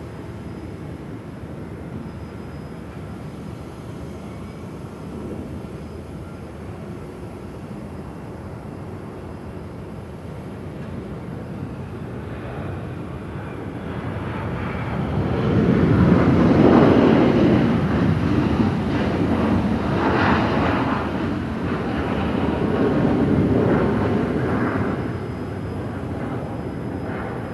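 Japan Airlines jet airliner landing, engine roar swelling about halfway through, surging several times and then dying down near the end, over a steady airport background hum.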